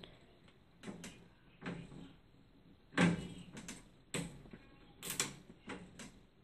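A series of separate knocks, clicks and clunks as the glass Exo-Terra terrarium and its frame are handled, the loudest about three seconds in.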